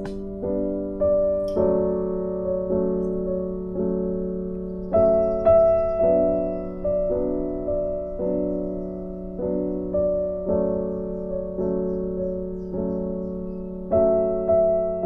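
Background music played on piano or electric piano, with notes struck about twice a second over held chords, each note fading away.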